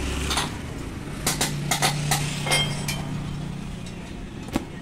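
A series of sharp metallic clinks and taps, about eight of them bunched together in the middle and one more near the end, over a steady low hum.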